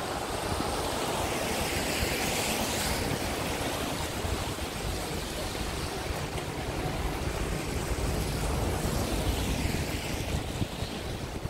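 Steady wind rumble on the microphone over an even hiss of rain and traffic on wet roads.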